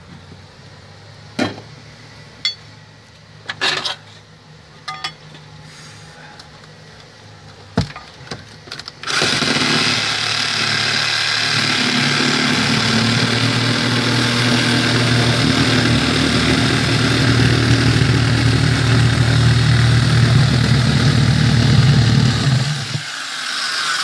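A few sharp knocks and clicks, then about nine seconds in a corded power tool starts up and runs steadily at full speed, cutting into a house's soffit overhang, until it stops about a second before the end.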